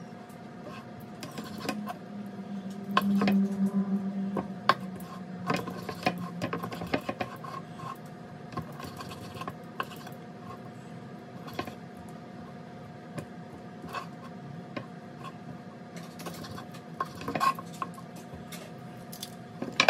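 Knife slicing cooked lamb shoulder blade chops on a wooden cutting board, with irregular taps and clicks of the blade and metal tongs against the board, over a steady background hum.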